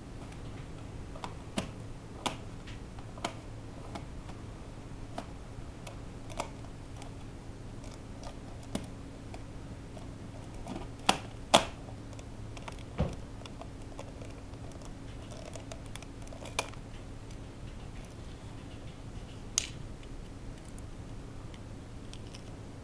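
Irregular sharp clicks and taps, about a dozen, from a corded computer mouse being handled and moved on a tile floor; the loudest pair comes a little past the middle. A steady low hum runs underneath.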